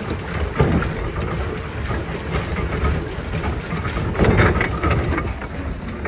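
Wind rumbling irregularly on the microphone aboard a pedal swan boat out on a lake, with a few louder gusts.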